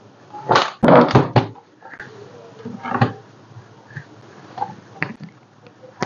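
Plastic laptop bottom cover being pressed and clipped into place: a quick cluster of clicks and knocks about a second in, a single knock around three seconds in, and a fainter one near the end.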